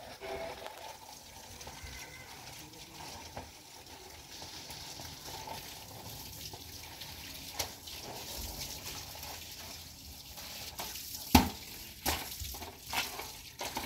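Water running or splashing, then a run of sharp knocks near the end, the first the loudest.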